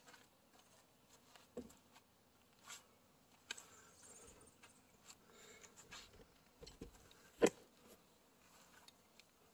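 Faint scattered knocks and rustles of handling, with one sharper click about seven and a half seconds in.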